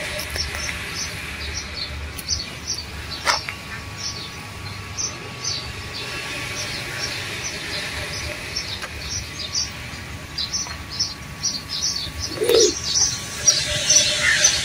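Wild birds chirping: many short, high chirps repeating over a low steady rumble, with a brief lower call and busier, louder calls near the end.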